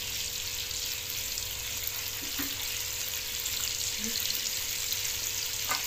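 Banana halves sizzling steadily as they fry in margarine in a pan, with a few light clicks of a wooden spatula against the pan, the clearest near the end.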